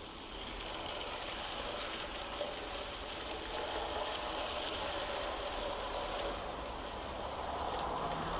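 N gauge model train, a tank locomotive hauling a long rake of wagons, running along the track with a steady rattle of small wheels on the rails.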